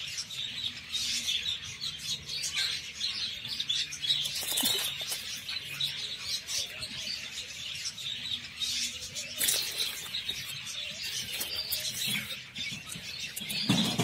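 Many small birds chirping continuously in a dense, high-pitched chatter, with brief louder rustles about four and a half and nine and a half seconds in.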